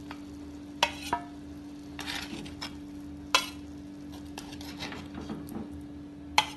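Steel spoon scooping cooked chicken pieces out of gravy in a cooking pot and onto a steel plate: several sharp clinks and some scraping of the spoon against pot and plate, over a steady low hum.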